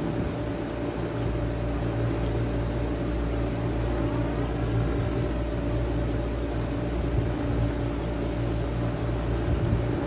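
1995 Bard 5-ton wall-hung heat pump running steadily in heat mode: compressor and outdoor fan giving an even hum over a low rumble.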